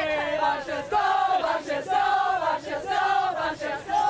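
A group of women chanting a team cheer in unison, one phrase about every second.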